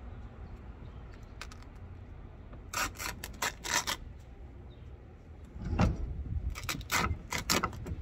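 Old upholstery fabric and padding being ripped and pulled off an antique chair frame by hand, in two spells of short, rough tearing and crackling strokes, over a low steady rumble.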